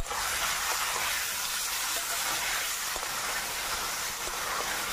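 Onion, garlic, ginger and tomato paste sizzling in hot oil with fried potatoes in a kadai: a steady hiss, with a brief knock of the metal spatula right at the start.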